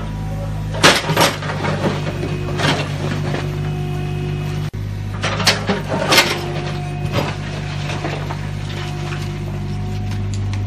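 Mini excavator's diesel engine running steadily while the bucket digs into broken brick rubble, with loud clattering knocks of bricks and debris, the strongest about a second in and again around five to six seconds in.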